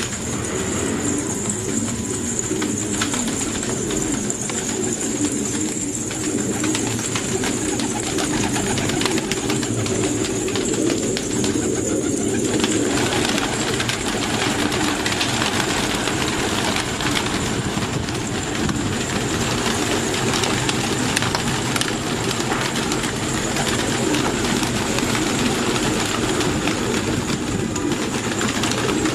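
A large flock of fancy domestic pigeons cooing all together in a dense, continuous murmur, with wings fluttering; from about halfway through, the rustle of wings and movement grows louder.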